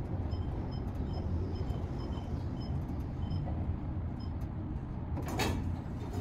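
Elevator car travelling upward: a steady low rumble from the cab and its hoist machinery, with faint short high beeps repeating unevenly over the first few seconds and a brief scuffing noise near the end as the car arrives.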